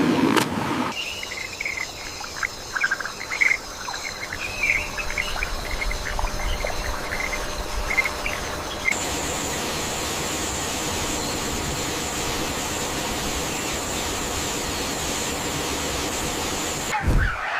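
Nature ambience: short bird chirps over a faint steady insect drone, giving way about halfway through to a steady high-pitched insect buzz over an even hiss.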